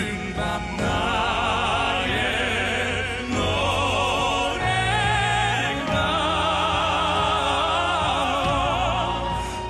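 Male operatic crossover voice singing a slow ballad line with wide vibrato over instrumental accompaniment.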